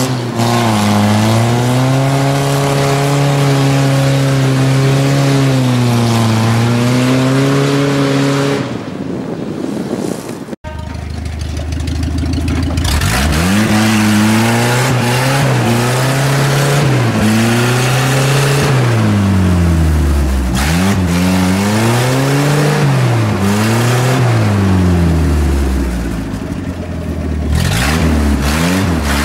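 A GAZ-69's engine pulls steadily under load, then fades away. After a cut about ten and a half seconds in, a second off-road 4x4's engine revs up and down again and again as it churns its wheels through deep mud.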